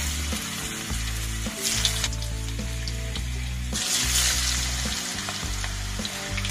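Potato wedges sizzling in hot oil in a non-stick kadai. The sizzle swells again about four seconds in as a plateful more wedges is tipped into the oil, and near the end a wooden spatula stirs them.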